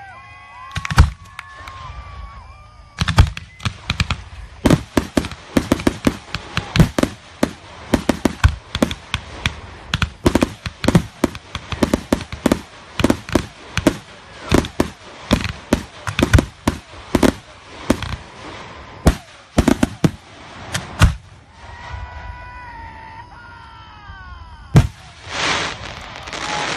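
Fireworks display: a rapid barrage of aerial shell bursts, several sharp bangs a second, thinning out after about twenty seconds, then a burst of crackling near the end.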